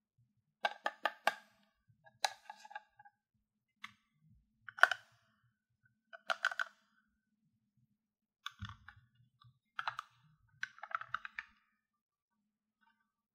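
Small plastic toy kitchen pieces clicking and tapping against each other in short clusters of a few clicks, a second or two apart, each click ringing with a slight hollow pitch.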